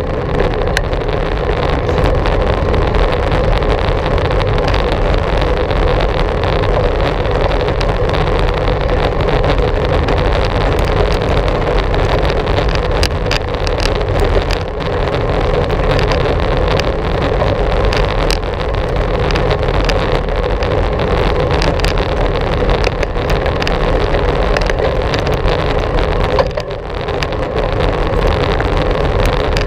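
Wind and riding noise on a GoPro's microphone during a bicycle ride: a steady, loud rush with scattered small clicks and rattles, dipping briefly near the end.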